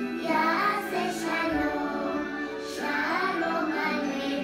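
A song with children singing over instrumental accompaniment, playing from a television.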